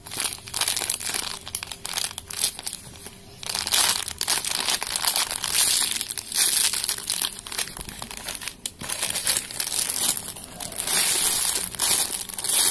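Thin clear plastic bags crinkling and crackling as squishy foam toys sealed in them are handled and squeezed, with a run of quick, irregular crackles that eases off briefly about two to three seconds in.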